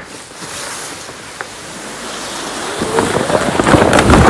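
Yurt roof canvas sliding off the frame: a rushing rustle that grows louder, with crackling and crumpling of the fabric near the end as it comes down.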